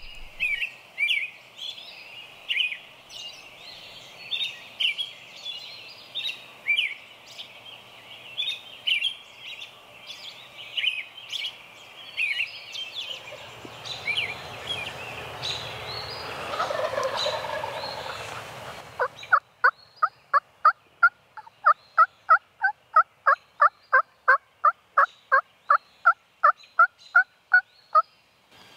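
Songbirds singing in short repeated phrases about once a second, then a swelling rush of noise. After an abrupt change, a long, evenly spaced series of about thirty turkey yelps follows, roughly three a second.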